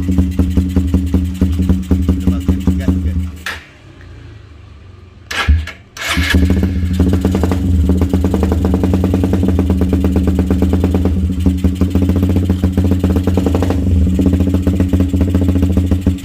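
Motorcycle engine idling through a Lone Rider aftermarket racing muffler with a fast, even exhaust beat. It cuts out about three and a half seconds in and starts up again about two seconds later, then settles back to a steady idle.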